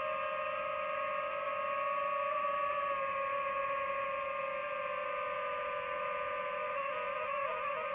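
DJI FPV drone's motors and propellers whining at a steady pitch, the tone warbling up and down briefly near the end as the throttle shifts.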